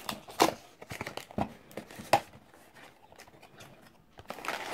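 Small cardboard figure box being opened by hand: crinkling and tearing packaging, with a few sharp snaps in the first couple of seconds. It goes quieter in the middle, then a burst of rustling near the end.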